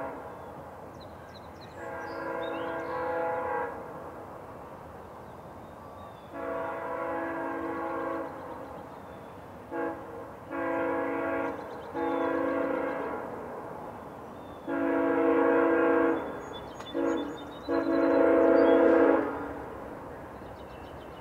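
Horn of VIA Rail GE P42DC locomotive 905 on an approaching passenger train, blown as a series of long blasts of several notes at once, with a few short ones among them, each louder than the last as the train comes closer.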